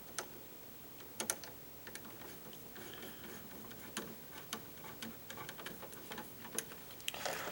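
Irregular light clicks and small scrapes of electrical wires and a wall switch being pushed and pulled around inside a junction box, with a pair of sharper clicks about a second in.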